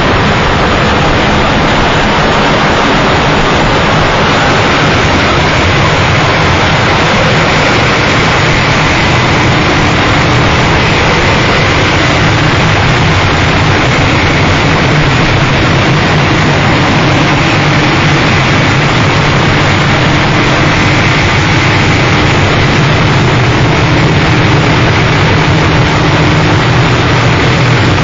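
Harsh noise music: a loud, dense, unchanging wall of distorted noise with a steady low drone underneath.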